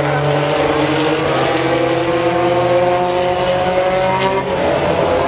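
Race car engines running hard around a dirt oval, their pitch climbing slowly and then dropping away about four seconds in.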